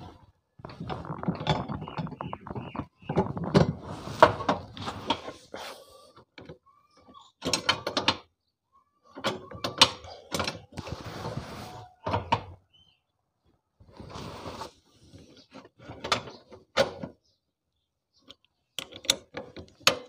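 Metal clicking and rattling of a clutch-nut socket turning on a bar at the clutch of a Honda CD70 engine, in irregular bursts with short pauses. The nut unscrews without force because it was already loose.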